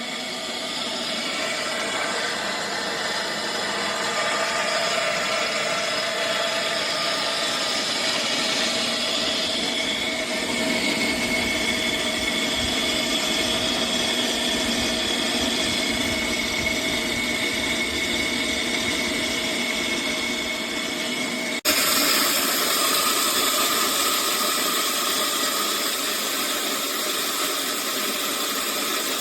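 A 3000 W electric grain grinder running with a steady motor whine and grinding noise. There is a sudden break about three-quarters of the way through, after which it runs on a little louder.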